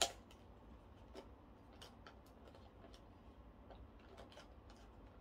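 Hands handling a small product box: a sharp click at the start, then scattered faint ticks and taps as the packaging is worked at.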